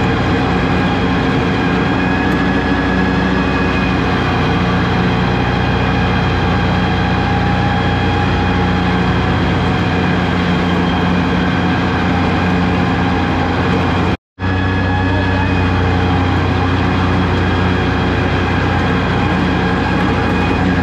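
Diesel tractor engine running steadily. The sound cuts out for an instant about two-thirds of the way through, then resumes slightly deeper.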